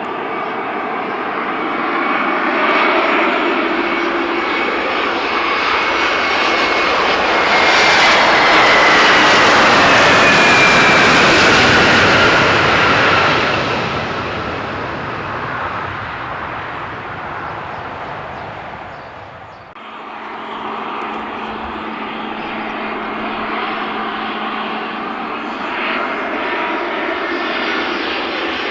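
Airliner engines passing close by: the noise builds to a peak with a whine that falls in pitch as the aircraft goes past, then fades. After a sudden break about two-thirds of the way through, steady aircraft engine noise continues.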